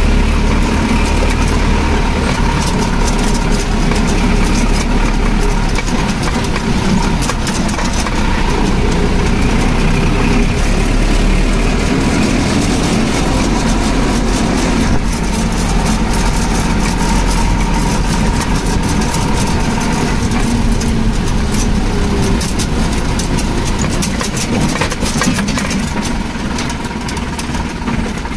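Tractor diesel engine running steadily, its level easing slightly near the end.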